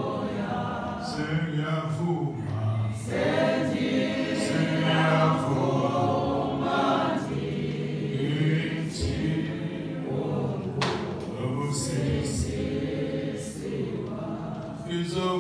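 A group of women singing a hymn together in several voices, holding long notes.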